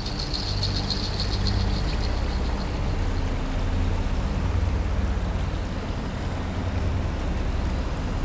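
Water-screen fountain machinery running with a steady low rumble. A high hiss of water spray comes through in the first two seconds or so.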